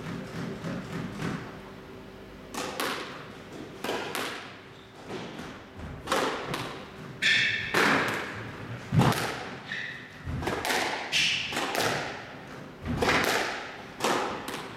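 Squash rally: sharp thuds from the ball being struck by rackets and hitting the court walls, coming irregularly about once or twice a second after a short pause at the start, with a few brief high squeaks of shoes on the court floor.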